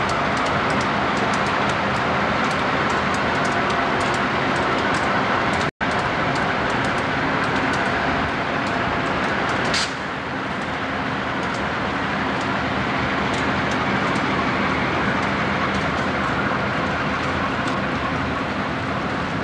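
Conrail diesel-electric locomotive running as it moves along the track, pulling a tank car: a steady engine drone mixed with train noise. The sound cuts out for an instant about six seconds in, and there is a click near ten seconds, after which it is slightly quieter.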